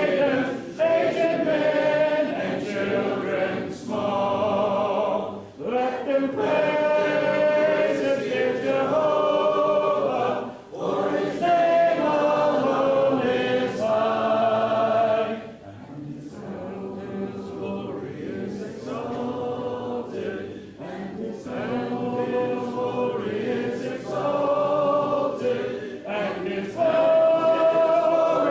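Congregation singing a hymn together a cappella, many voices in harmony. The singing is softer through the middle and swells again near the end.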